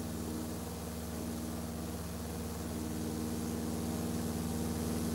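A steady low droning hum made of several held low tones, growing slightly louder toward the end.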